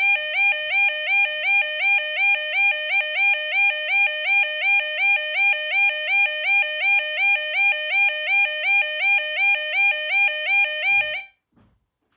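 Arduino-driven electronic alarm sounding a two-tone warble: a buzzing tone that steps between a lower and a higher pitch about two and a half times a second. It cuts off suddenly about a second before the end.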